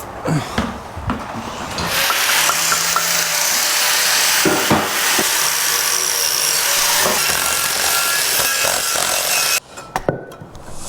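A handheld power tool runs steadily for about eight seconds at one even pitch, then cuts off suddenly, after a few metal clanks at the start.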